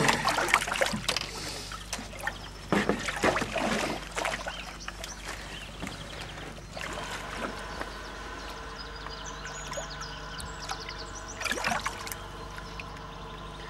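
Water splashing and sloshing in a plastic tub holding live pike, in bursts over the first few seconds and again briefly near the end. A steady hum runs underneath from about halfway through.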